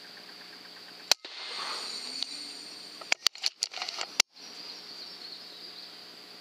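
FX Impact .22 PCP air rifle firing one sharp crack about a second in, followed around three seconds in by a quick run of clicks and knocks, over a steady high-pitched insect hum.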